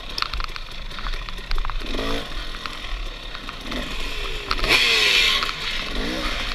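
Off-road dirt bike engine revving up and down several times as the bike is ridden over rough ground, with sharp rattling clicks. A loud rushing hiss comes about five seconds in.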